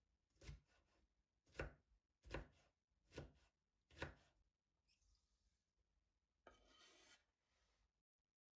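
A kitchen knife chopping on a cutting board: five separate chops a little under a second apart, then a short scraping rustle near the end.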